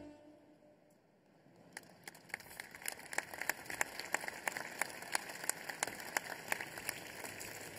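Audience applause: after the music cuts off and a second or two of quiet, many hands start clapping about two seconds in and the applause grows and keeps going.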